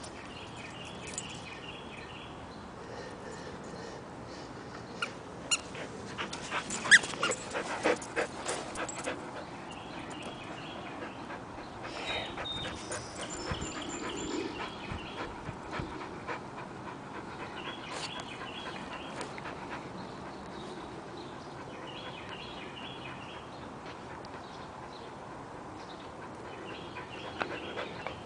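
Chow chow dog playing with a plush toy on grass, with a run of sharp clicks and knocks about five to nine seconds in, the loudest about seven seconds in. A short chirping call repeats every few seconds.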